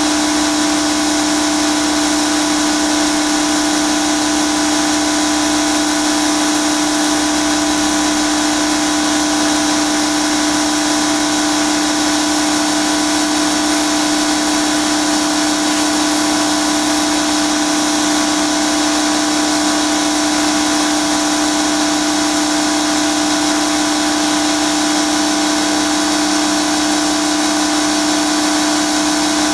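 Pressure washer running steadily at one unchanging pitch, with a strong hum and the hiss of the spray.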